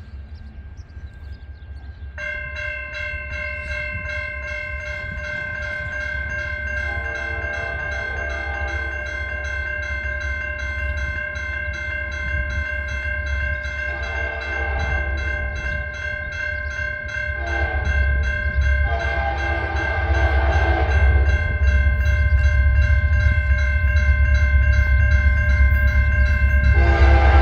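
A grade-crossing warning bell starts ringing a couple of seconds in, a fast steady clanging that continues as the gates are down. Over it the approaching locomotive's air horn sounds the crossing signal: two long blasts, a short one and a long one, then starts another blast near the end. A low rumble builds as the train nears.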